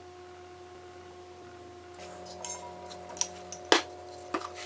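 A steady electrical hum, then from about halfway light clinks and knocks of a wooden dowel frame against a glass vase as it is handled and lifted out, with one sharper knock near the end.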